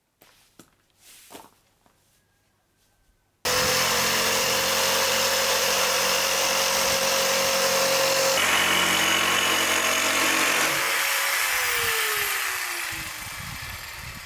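A few faint knocks, then about three and a half seconds in an electric jigsaw starts and runs loudly with a steady motor whine while cutting a 6 mm plywood template. Near the end the motor winds down, its whine falling in pitch.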